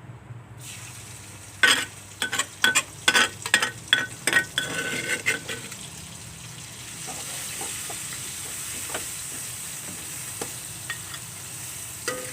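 Food frying in hot oil in a pan, with a spatula knocking and scraping against the pan about ten times as it is stirred. After the stirring comes a steady sizzle.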